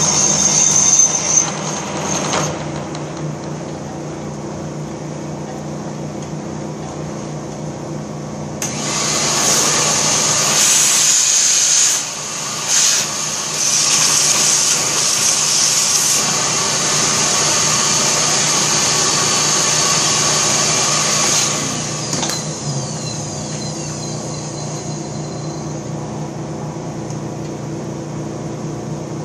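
Horizontal boring machine (1942 Giddings & Lewis Model 25) running with a steady motor hum while its boring bar works in the rear main seal bore of a Ford 302 engine block. A loud hissing spell from about 9 to 21 seconds is likely the tool cutting. The machine then settles back to the hum alone.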